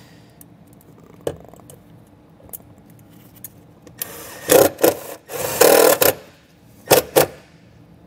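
Cordless drill driving a self-tapping screw into the car's sheet-metal body: two runs of about a second each starting about four seconds in, then two short blips as the screw is snugged down. Light handling clicks come before it.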